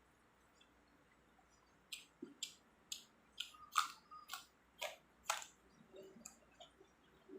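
Close-up chewing of crunchy food: about eight crisp crunches, roughly two a second, starting about two seconds in, then softer wet mouth noises near the end.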